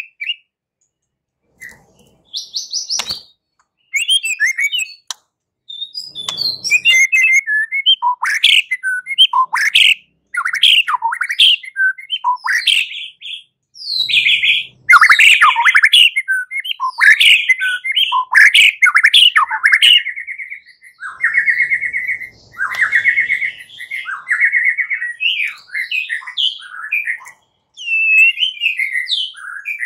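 White-rumped shama (murai batu) singing its loud, aggressive 'fighting' song: a varied run of whistles, sweeping notes and rapid trills that starts after a short pause. Now and then the bird's wings flutter against the cage.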